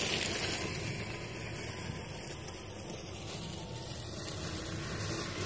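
Traxxas TRX-4 RC crawler driving over dry leaves: a steady rustling crunch of leaves under its tyres.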